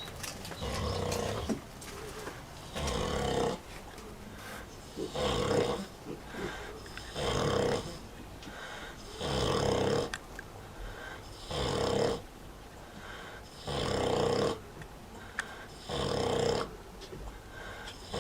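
Vietnamese pot-bellied sow snoring in her sleep. The snores are loud and regular, each under a second long, coming about every two seconds.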